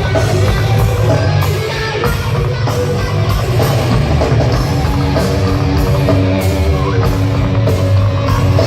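Live rock band playing an instrumental passage: a heavy bass-guitar riff over drum kit with regular cymbal hits, and sustained held notes coming in about five seconds in.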